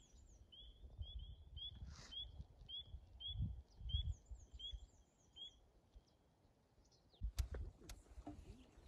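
A bird calling faintly in a string of short rising chirps, about two a second, with fainter high descending notes above them; the chirps stop after about five seconds. Low wind rumble on the microphone throughout, and a few sharp knocks near the end.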